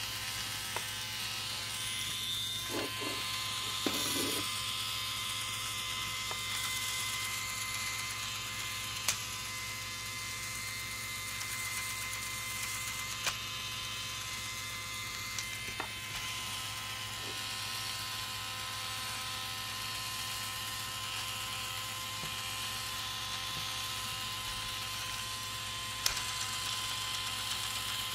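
Small battery-powered electric motor driving a 3D-printed plastic gear transmission, running with a steady whine, with a few sharp clicks along the way.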